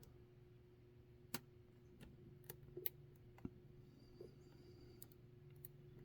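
Faint, irregular clicks of a hook pick and tension tool working the wafers of a Reese coupler lock, about seven in a few seconds. A low, steady hum lies underneath.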